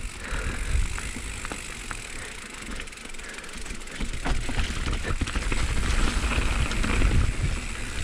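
Mountain bike rolling downhill over a leaf-covered dirt trail: tyre noise with rattling and clicking from the bike and a low rumble, getting louder about halfway through as the speed picks up.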